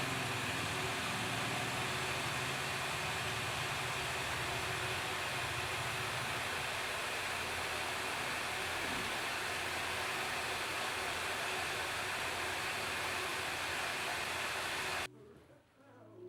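A workshop power tool running steadily with an even hissing noise and a faint low hum, stopping abruptly near the end.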